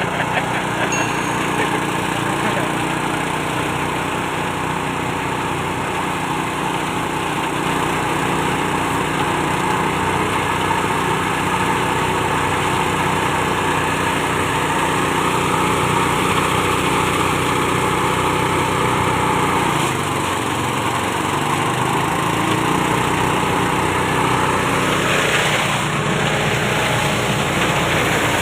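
Small engine-driven rice thresher running steadily. Its pitch dips briefly about twenty seconds in, then recovers.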